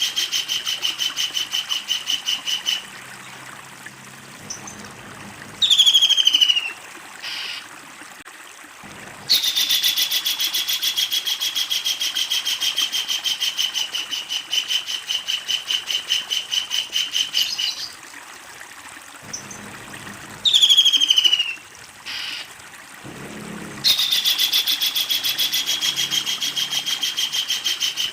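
Kingfisher giving its long, rapid rattling chatter, a fast even string of harsh notes held for several seconds at a time. Twice, between the long rattles, it gives a short, sharply falling call.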